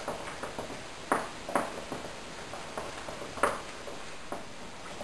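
Spoon clinking against a glass mixing bowl while stirring a thick marshmallow and chocolate mixture: scattered light clinks, with three sharper ones about a second, a second and a half, and three and a half seconds in.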